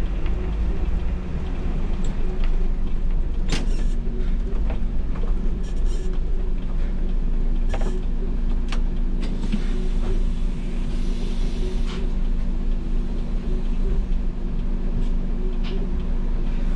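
MAN NL283 Lion's City city bus, heard from the driver's cab, with its diesel engine running at low speed as the bus pulls in and stands at a stop. Scattered clicks and rattles come from the cab, and there is a brief hiss about eleven seconds in.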